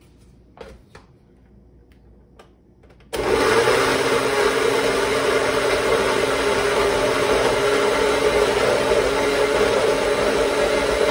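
Countertop blender with a glass jar switched on about three seconds in and running steadily, chopping peeled garlic cloves in olive oil into a paste. Before it starts, a few faint knocks as the lid is fitted on.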